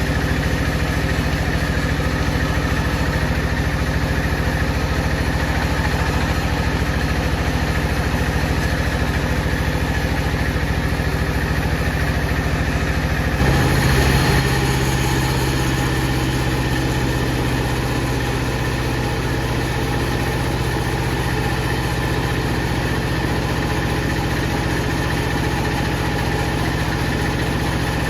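Bandsaw machinery running with a steady mechanical hum. About halfway through the sound changes abruptly to a different, steadier hum with a stronger low tone.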